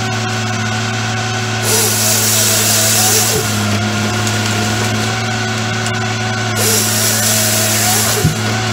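Fabtek 133 harvester's engine running steadily while the harvester head's saw bucks a pine stem twice. Each cut is a loud rasping hiss of about two seconds, the first about two seconds in and the second near the end.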